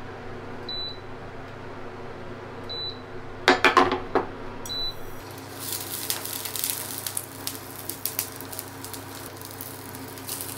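Three short high beeps about two seconds apart and a brief clatter about three and a half seconds in, then hot oil in a frying pan starts to crackle and sizzle as frozen beef sausages begin to fry.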